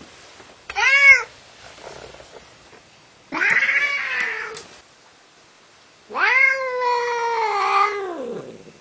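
A cat calls three times: a short meow, then a longer one, then a long drawn-out yowl that drops in pitch at the end. It is the sound of an agitated, ornery cat.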